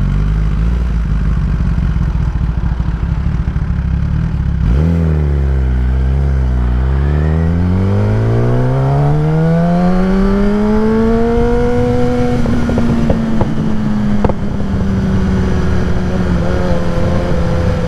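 Kawasaki ZX-10R inline-four with a Graves race exhaust: a low, steady engine note, then about five seconds in the revs climb smoothly for several seconds before levelling off and holding steady.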